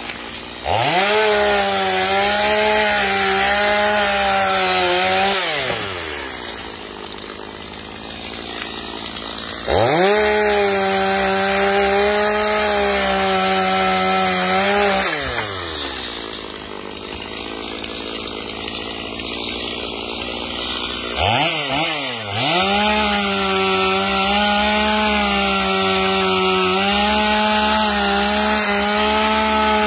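Stihl MS250 two-stroke gas chainsaw cutting into a tree trunk, throttled up to full speed in three long bursts of several seconds. Between bursts it drops back to a lower, quieter running speed, with two quick revs before the last burst.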